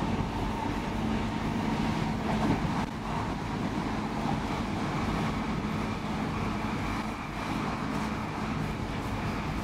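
Interior running noise of an X10 electric commuter train travelling at speed: a steady rumble of wheels on rail with a low hum. A faint high tone joins about halfway through.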